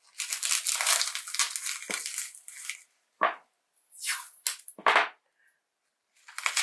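Bubble wrap crinkling as it is folded around a small keychain. This is followed by a few short rasps of tape being pulled off a roll and torn.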